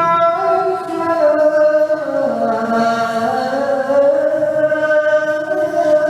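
A solo voice chanting slow, drawn-out melodic phrases with long held and ornamented notes.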